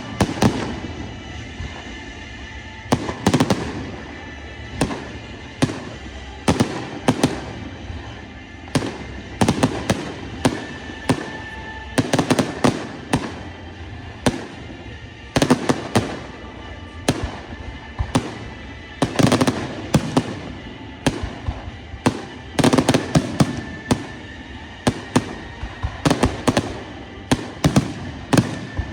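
Fireworks display: aerial shells bursting in repeated sharp bangs at irregular intervals, some in quick clusters of several, over a music soundtrack.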